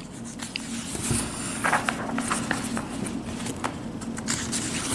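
Soft rustling of a coloring book's paper pages under a hand, with a few faint ticks, over a steady low hum.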